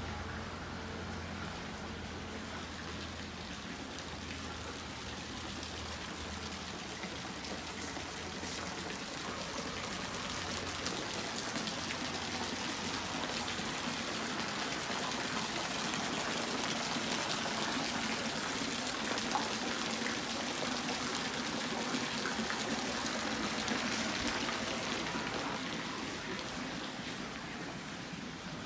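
Running water, a steady rushing trickle that grows louder toward the middle and fades again near the end.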